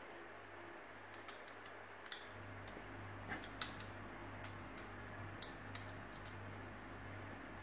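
Light, irregular clicks and taps of a screwdriver and small bolts being handled while bolts are taken out of a hammer drill, a dozen or so over several seconds, over a low steady hum.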